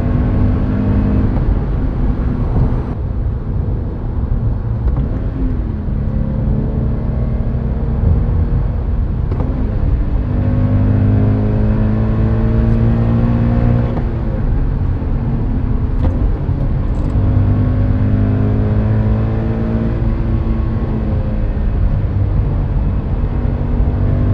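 Subaru BRZ / Scion FR-S / Toyota 86 flat-four engine with unequal-length headers and an Invidia Q300 cat-back exhaust, heard from inside the cabin under hard acceleration. The engine note climbs in pitch, drops at each upshift and climbs again, several times over.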